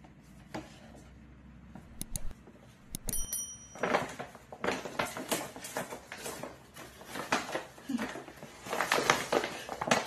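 Paper shopping bag rustling and crinkling in irregular bursts as it is handled with a small dog inside, busiest in the second half. There is a brief high squeak about three seconds in.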